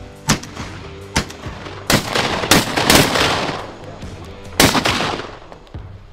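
Shotgun shots at ducks in flight, about six in quick succession, each with a short trailing echo. The heaviest cluster comes two to three seconds in, and one more loud shot follows near the end.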